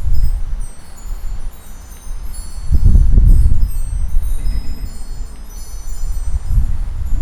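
A chorus of many small birds chirping in short, high notes, over a low rumble of wind buffeting the microphone in gusts, loudest about three seconds in.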